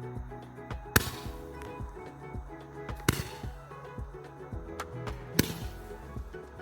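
Background music, cut through by three sharp firework cracks about two seconds apart.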